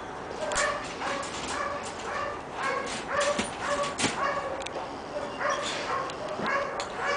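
A dog giving a string of short, high-pitched yelping whines, about two a second.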